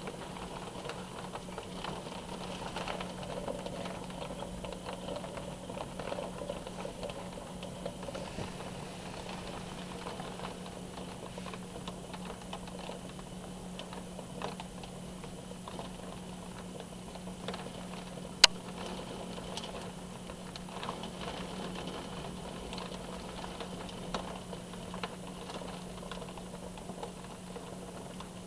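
Heavy rain pattering, heard from behind a window pane as a dense stream of small drop ticks over a steady low hum. One sharp click stands out about two-thirds of the way through.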